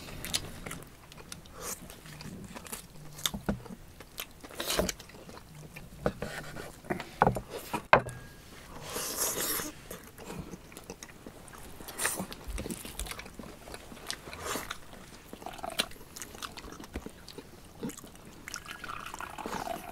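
Close-up eating of khorkhog meat on the bone: chewing and mouth sounds, with knives clicking and scraping against bones and a wooden board. Near the end, liquid is poured into a bowl.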